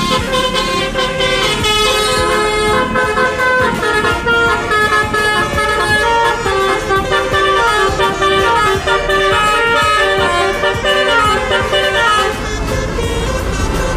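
Indonesian bus 'telolet' horn, a multi-note air horn, playing a stepping melody of held tones. It stops about twelve seconds in, leaving a low rumble.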